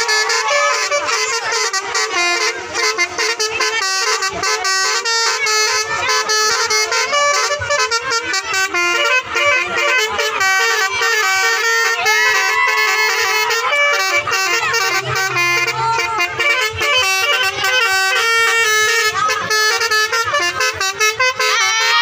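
Bus telolet melody horn (basuri) sounding a long, fast run of short pitched notes, like a tune played on the horn, without a break.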